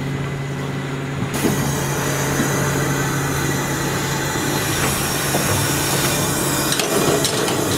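LMS Ivatt Class 2MT tank locomotive moving slowly under steam: a steady hiss starts suddenly about a second in, over a low steady hum, with a few clanks near the end.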